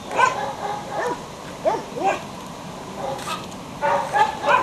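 Belgian Shepherd puppy giving short, high yips and whimpers, scattered at first and coming thick and fast near the end.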